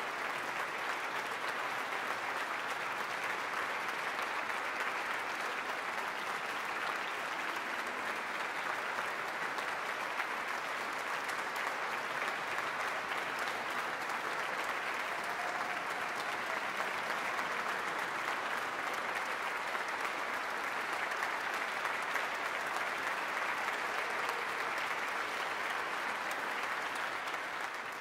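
Audience applauding steadily, a dense even clapping that begins to fade away near the end.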